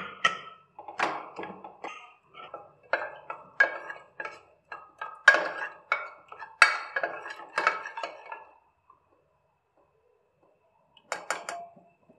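Aluminium pressure cooker being opened and the cooked moong dal inside stirred with a ladle: a run of sharp clinks and knocks of lid and ladle against the pot for about eight seconds. After a short pause, three quick clinks near the end.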